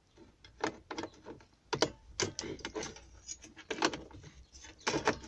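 Sheet-metal radio mounting frame being forced into the car dashboard's radio slot: irregular metallic clicks, knocks and scrapes against the plastic, a tight fit.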